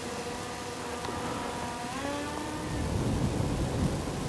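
DJI Mavic Air 2 drone's propellers whining in flight: a cluster of steady tones that steps up in pitch about halfway through as the motors speed up. A low rumble of wind on the microphone grows near the end.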